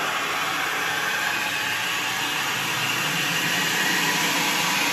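Steady rushing hiss of pressurised water flowing through a solenoid water control valve and its fittings while the bonnet is drained and the valve opens.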